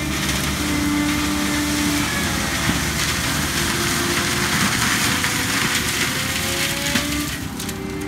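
An ASV tracked skid steer runs under load while its Gyro-Trac 500 HF forestry mulching head grinds through brush and palm. The sound is a steady, dense shredding noise over the engine's drone, with its pitch rising and falling as the load changes.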